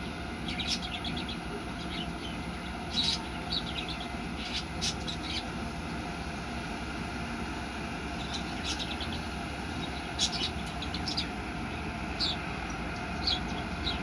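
Birds chirping in short, scattered calls over a steady low rumble from a distant freight train hauled by Kansas City Southern de México GE AC4400CW diesel locomotives.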